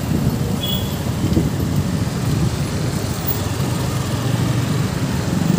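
Riding a motorcycle through town traffic: steady wind buffeting on the microphone over engine and road noise, with a short high beep about half a second in.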